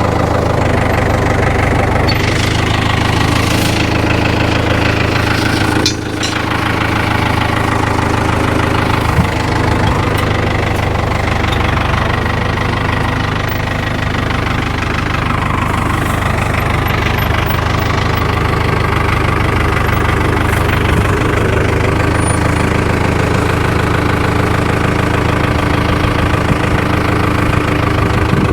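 A vehicle engine running steadily at a constant speed, with a brief dip in level about six seconds in.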